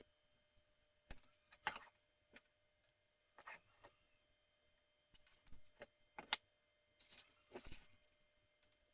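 Small metal parts clinking and knocking as they are handled, in about ten short, uneven strikes, some with a bright ring.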